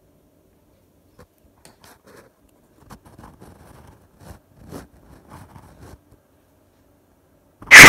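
Faint scattered clicks and scrapes, then near the end a sudden, extremely loud harsh noise blast cuts in at full volume, piercing with a strong high band.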